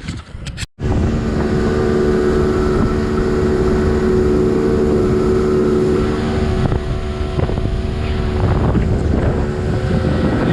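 Motorboat engine running steadily under way, with wind buffeting the microphone. It starts abruptly just after the beginning and cuts off suddenly near the end.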